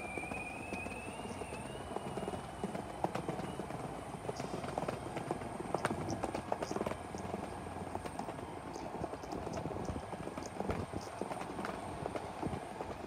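Electric skateboard rolling over a paver walkway: the wheels clack irregularly over the tile joints on a steady rolling rumble. A thin motor whine rises in pitch over the first few seconds.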